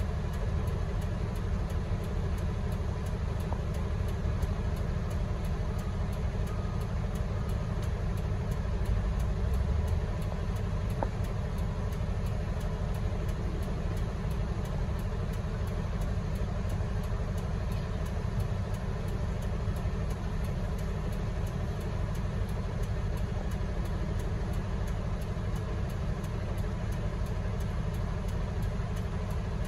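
Heavy diesel machinery running steadily: a Komptech Nemus 2700 diesel-hydraulic trommel screen working together with the excavator that loads its hopper, as one continuous low engine drone.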